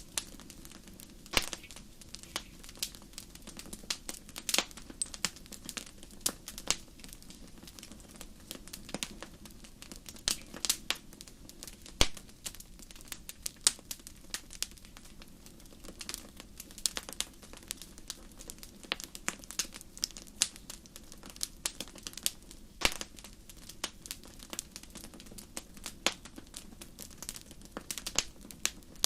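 Wood fire crackling in a fireplace: a steady low rush of flame with irregular sharp pops and snaps, several a second, a few louder cracks standing out.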